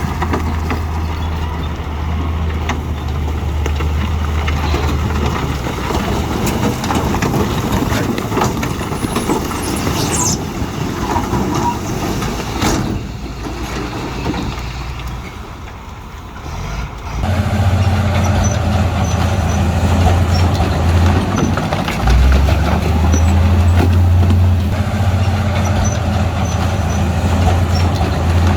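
Heavy diesel earthmoving machinery running steadily under load. There is a brief quieter stretch a little past the middle, then the engine sound comes back louder and steadier.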